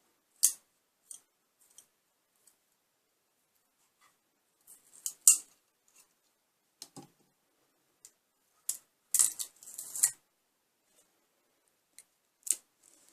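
Hands handling a freshly 3D-printed plastic part: scattered small clicks and snaps and short scratchy rasps, the loudest about five seconds in and a longer rasp around nine to ten seconds in.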